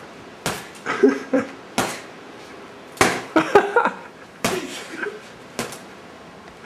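Boxing-gloved punches landing on a heavy punching bag: about seven sharp thuds at an uneven pace, with brief vocal sounds between some of the hits.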